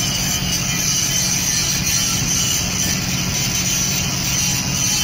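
Steady drone and hiss of a moored ferry's engines and funnel exhaust running at the quay, the funnel putting out dark smoke.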